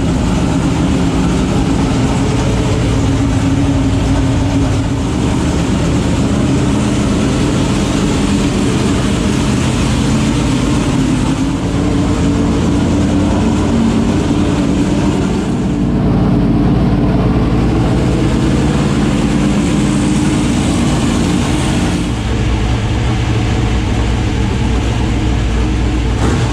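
Dirt super late model race car's V8 engine, just fired up, running loud and steady, its note shifting a couple of times.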